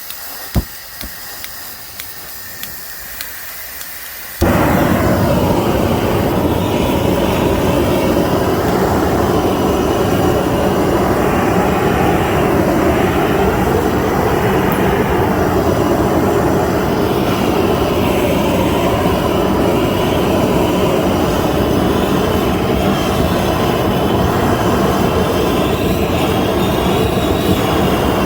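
Propane torch: a few clicks over a faint gas hiss, then about four seconds in it lights suddenly and burns with a loud, steady rushing noise.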